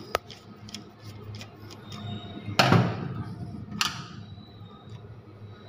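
Sharp clicks and knocks from handling miniature circuit breakers in a breaker panel, with a louder short clatter about two and a half seconds in and a weaker one just before four seconds.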